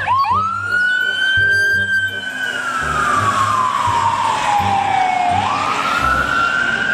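Ambulance siren wailing: the tone climbs quickly, holds high, sinks slowly over about three seconds, then climbs sharply again near the end, over a low rumble of traffic.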